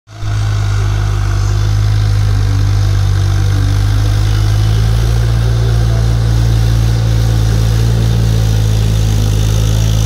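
Massey Ferguson 241 DI tractor's three-cylinder diesel engine running steadily under load while pulling a disc plough through the soil, a constant low drone.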